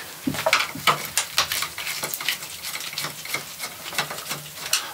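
Screwdriver working screws out of the plastic front grille of a Land Rover Discovery 4: a run of small, irregular clicks and ticks of metal on plastic.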